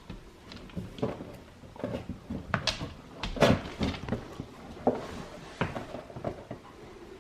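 A large cardboard advent calendar being handled and opened, with scattered taps, knocks and rustling of cardboard and packaging.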